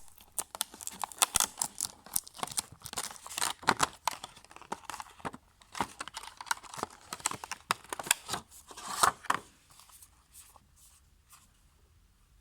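Packaging being torn open and crinkled by hand: a dense run of sharp rips and crackles, thinning out to a few scattered rustles after about nine seconds.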